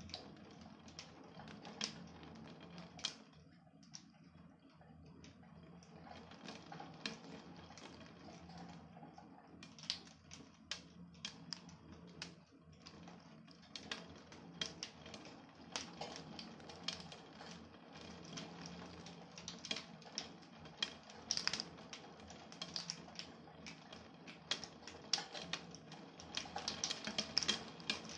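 Raindrops tapping irregularly on a hard surface during a storm, the taps coming thicker and louder near the end, over a faint low steady hum.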